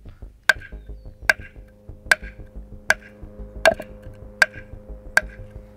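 Knife point stabbed repeatedly into a Hesco L210 ceramic body armor plate: seven sharp strikes, about one every 0.8 s, each with a short ring.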